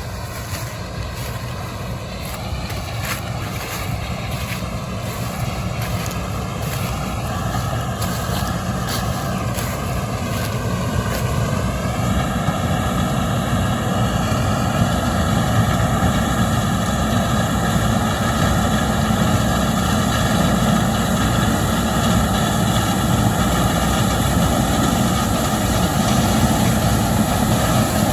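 Heavy farm machine engine running steadily. It speeds up, rising in pitch around ten seconds in, then holds at the higher speed, growing slowly louder.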